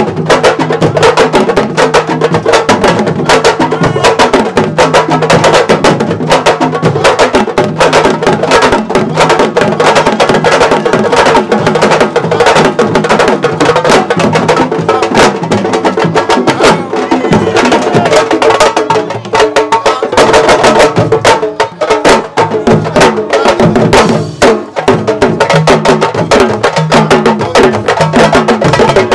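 Fast, dense drumming with sharp, stick-like strikes over a steady pitched layer: the drum music played for Senegalese wrestlers' dances, in the manner of sabar drumming. It dips briefly twice in the second half.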